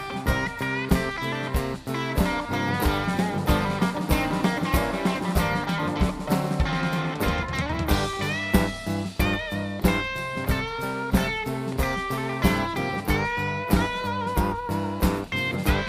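Blues band playing an instrumental break, with a lead guitar line bending notes over a steady drum beat.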